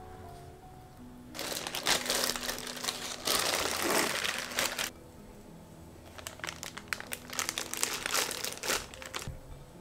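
Thin plastic zipper bag crinkling as it is handled, shaken open and fitted over a glass, then again as dough is spooned into it. There are two bouts, the first starting about a second and a half in, the second shorter and made of quick crackles, with soft music underneath.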